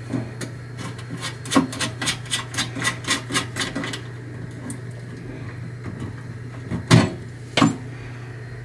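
Hands working cables and round metal connectors on a control cabinet's panel: a run of quick metallic clicks and rubbing, then two louder knocks near the end, over a steady low hum.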